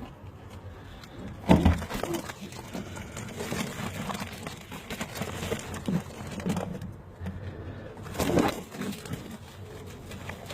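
Pet turtle doves cooing, with two louder sounds about a second and a half in and again about eight seconds in.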